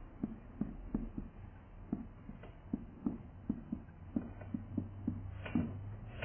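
Dry-erase marker squeaking and tapping on a whiteboard as a word is written: a quick run of short strokes, about two or three a second, with the loudest stroke near the end.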